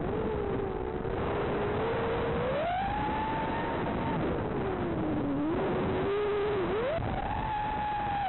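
Rekon 5 FPV drone's motors and propellers whining in flight, the pitch following the throttle: it climbs about two and a half seconds in and holds high, sags low around five seconds, then rises again about seven seconds in.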